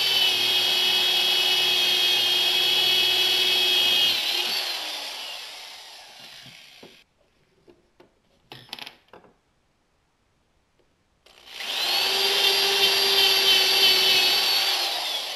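Corded electric drill running with a steady whine as it bores into a wooden block, then winding down, its pitch falling, after about four seconds. After a pause with a few small clicks, it starts again about eleven seconds in, runs, and winds down near the end. The first run uses a bit ground flat without a relief angle; the second uses the same bit resharpened at an angle.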